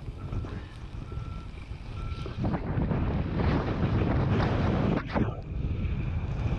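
Brush truck engine rumbling with wind on the microphone; three short electronic beeps about a second apart in the first two seconds, then a loud rushing noise from about two and a half seconds in.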